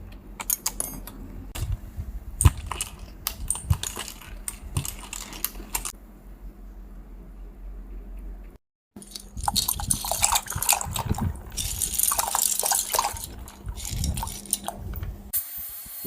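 Plastic computer keyboard parts clicking and clattering, with scattered sharp clicks of keys or keycaps being handled. After a brief cut, a denser stretch of rubbing and scraping noise mixed with clicks.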